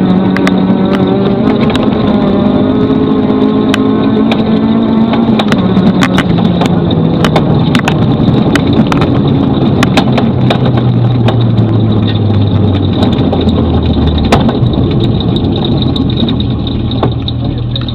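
Rally Volkswagen Golf with a very sick sounding engine, being nursed along, running close by and pulling away. Its engine note falls steadily in pitch, with sharp cracks scattered through it.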